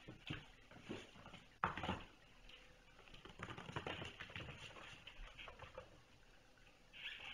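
Kittens' paws scampering and pattering during play, with a sharp knock about a second and a half in and a quick flurry of pattering near the middle.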